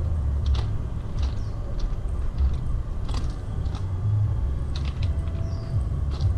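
Footsteps crunching on the gravel ballast of a railway track, irregular steps about one or two a second, over a steady low rumble.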